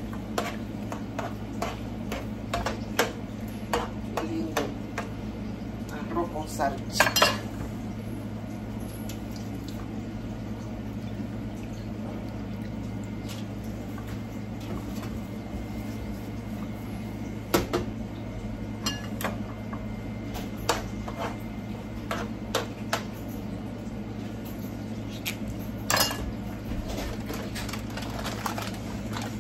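A spoon clinking and knocking against a metal cooking pan while food is stirred, in scattered strikes with a busy cluster about seven seconds in and single sharp knocks later. A steady low hum runs underneath.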